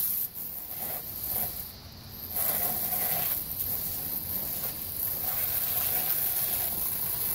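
Garden hose spray nozzle hissing steadily as water is sprayed over gear, with a short pause about two seconds in before the spray resumes.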